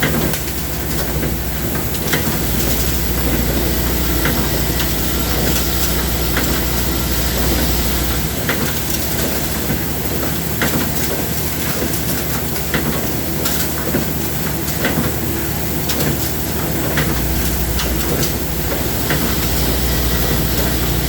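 Machinery running with a steady hiss and rumble and scattered sharp clicks. A low hum comes in about two seconds in, drops out near the middle, and comes back near the end.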